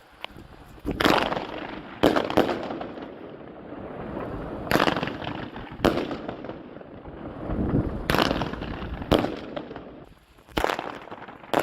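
Consumer fireworks going off: a string of sharp bangs at irregular intervals, about one to two seconds apart, with a noisy hiss of the burning shells between them.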